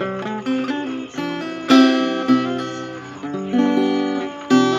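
Acoustic guitar playing several chords, each struck and left to ring out before the next.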